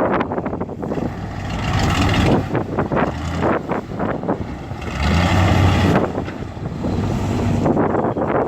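Bulldozer's diesel engine working under load, swelling twice, with a steady run of metallic clanking and scraping from the machine and the material it moves.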